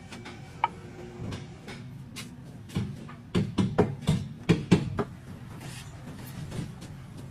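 A quick run of sharp knocks and clunks over about two seconds, near the middle, with a few single clicks before it.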